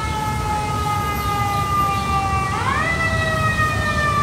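An emergency-vehicle siren wailing: its pitch slides slowly down, sweeps back up about two and a half seconds in, then slides slowly down again, over a low rumble.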